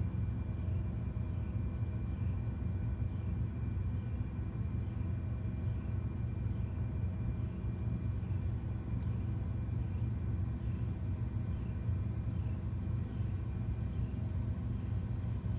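Car subwoofers playing a steady, deep 40 Hz test tone while the full-bridge amplifier's gain is being set. Near the end the amplifier reaches the point where its output distorts.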